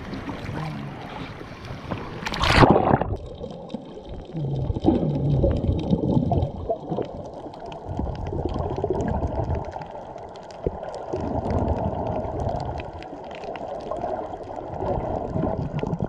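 A loud splash about two and a half seconds in as the camera plunges under the sea surface, then muffled underwater sound: dull rushing and gurgling water heard through the submerged camera, with the high end gone.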